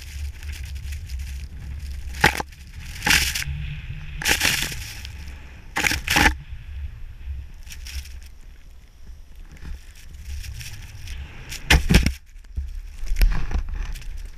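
Snowboard riding through deep powder snow: a continuous hiss of the board in the snow, with several louder swooshes of spraying snow as it turns, over a steady low rumble of wind on the microphone.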